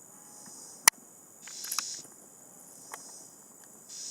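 Insects buzzing in a high chorus that swells in and fades in waves, rising about a second and a half in and again near the end. A single sharp click about a second in, with a few faint ticks after.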